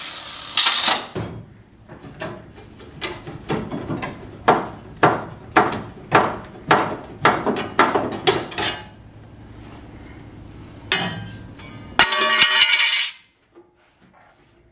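Metal being struck in a car's engine bay: a run of sharp, ringing metal-on-metal blows, about two a second. Near the end there is a single hit, then a loud burst of noise about a second long.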